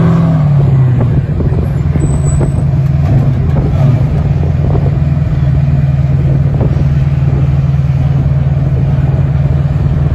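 Trophy truck's engine dropping in revs as the truck rolls to a stop, then idling steadily, with scattered knocks from work on the truck.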